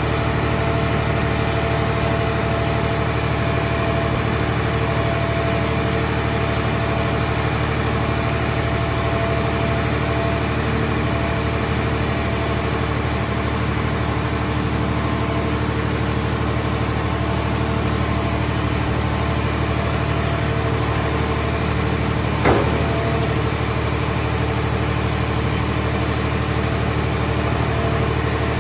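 Mobile car baler's power unit running at a steady idle-like drone, with one sharp knock about three-quarters of the way through.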